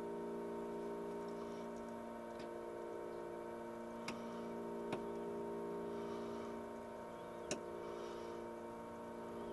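Steady workshop hum made of several tones, with three faint sharp metallic clicks a second or more apart as a telescopic bore gauge is worked in the bore of a metal part held in a lathe chuck.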